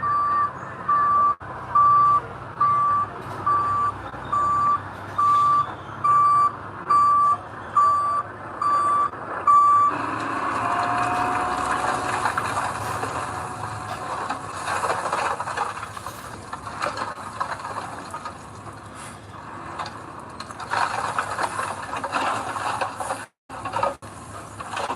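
Dump truck's reversing alarm beeping in an even rhythm, about three beeps every two seconds, stopping about ten seconds in. Heavy machinery engine noise follows.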